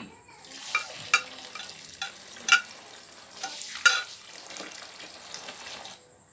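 Water poured into a plastic basin over coarse ground corn, a steady splashing that stops suddenly near the end, with several sharp clicks along the way.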